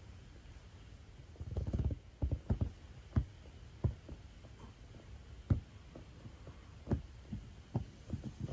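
A series of soft, irregular low thuds, about a dozen over several seconds, starting about a second and a half in, over a low background rumble.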